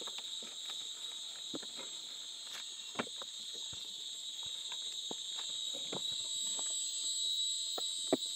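Steady high-pitched drone of an insect chorus, with scattered light clicks and rustles as a bundle of cut leafy plants is handled and carried.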